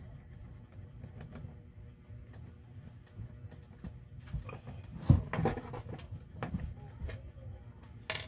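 Clicks and knocks of a screwdriver working the retaining screw out of a corded drill's chuck, with one louder knock about five seconds in and a sharp click near the end, over a steady low hum.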